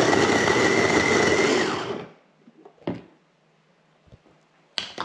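Small electric food chopper, motor on top of a glass bowl, running steadily with a whine while it grinds dried bread into breadcrumbs. It switches off and winds down about two seconds in, followed by a single knock about a second later.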